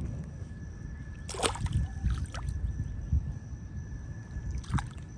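A small fish splashing as it is slid back into shallow river water: one sharp splash about a second and a half in, then a few smaller splashes.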